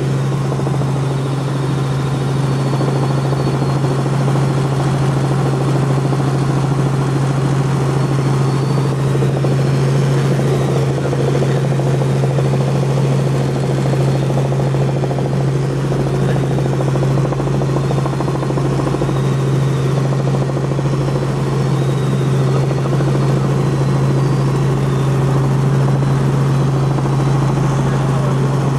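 Light helicopter in steady cruising flight, heard from inside the cabin: a constant engine and rotor drone with a strong low hum.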